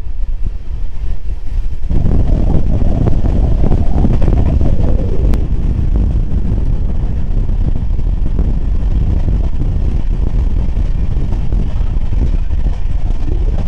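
Train running, heard from on board: a steady low rumble that grows louder about two seconds in and then holds even.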